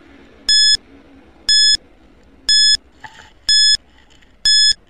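Countdown timer beeping once a second: five short, high beeps, each about a fifth of a second long, marking the seconds running out.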